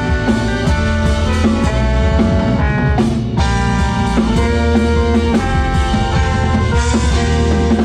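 Live band playing an instrumental groove: a drum kit keeping a steady beat under held chords that change about once a second, with guitar.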